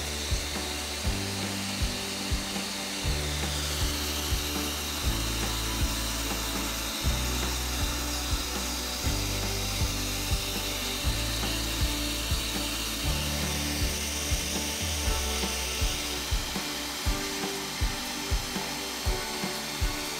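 Background music with a bass line and a steady beat of about two beats a second, over a steady hiss.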